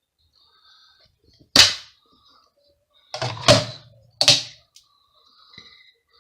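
Three sharp clacks of hard objects knocking together, about a second apart, the middle one a quick double knock.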